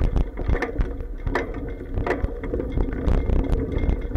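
Riding noise of a bicycle as picked up through an action camera's waterproof housing mounted on the bike: a steady low rumble with frequent irregular clacks and knocks as the bike jolts over bumps in the road.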